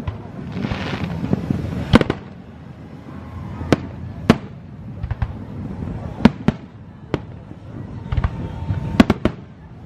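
Aerial fireworks: a string of sharp shell bursts, bangs about once a second, with a cluster near the end and a low rumble between them. About a second in there is a short hiss.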